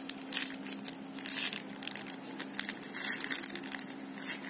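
Thin clear polythene sheet crinkling in irregular rustles as it is rolled up tightly by hand into a strip of grafting tape.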